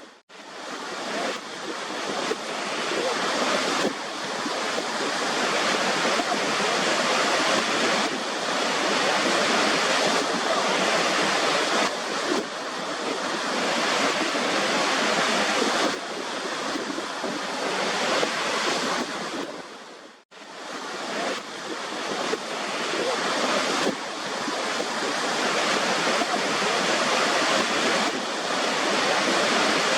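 Waterfall rushing: a steady roar of falling water with no distinct events. About two-thirds of the way through the sound briefly drops almost to silence and swells back up, like a loop joint in the recording.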